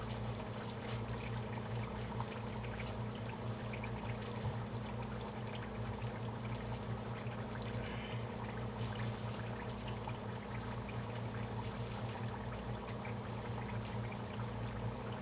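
Potato chunks frying in hot oil in a skillet: a steady sizzle with fine crackling, over a steady low hum.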